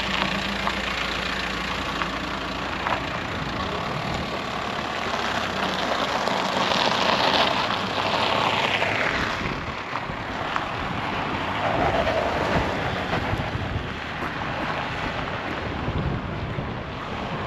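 VW T5 van driving slowly over the humps of a rough dirt track, with wind noise on the microphone.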